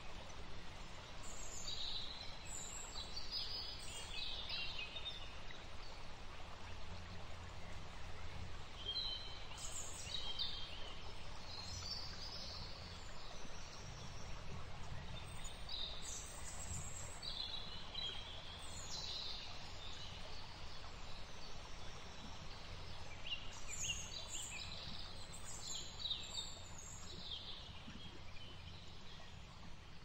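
High bird chirps and calls coming in several bursts, about four clusters, over a steady low outdoor background noise.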